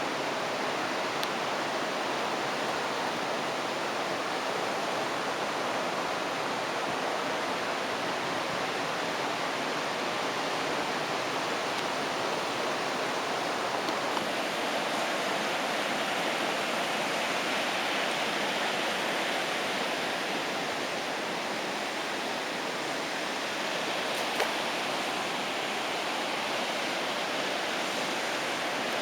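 Rough sea surf breaking on a beach: a continuous rushing wash of noise that swells a little in the middle.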